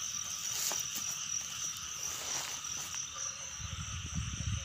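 Night chorus of insects and frogs: a steady high insect trill over softer frog calling. A low rumble joins about three and a half seconds in.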